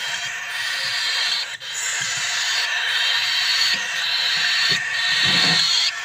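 Several young parrot chicks giving their begging calls together as a steady, noisy chorus that breaks off briefly a couple of times.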